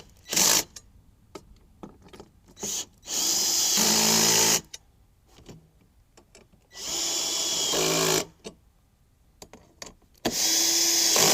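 Power drill running in three runs of about a second and a half each, with two short blips between them, driving the bolts home.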